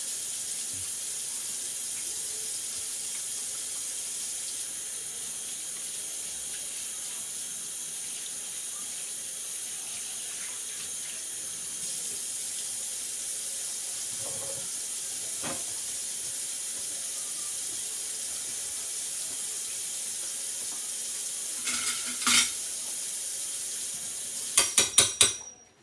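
Kitchen sink faucet running steadily while hands are washed. A few knocks come near the end, and then the water cuts off suddenly.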